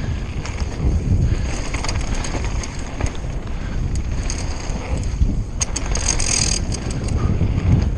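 Mountain bike riding fast down a dirt downhill trail: wind buffeting the action camera's microphone as a steady rumble, with the bike's chain and frame clattering over bumps. A short hissing burst about six seconds in.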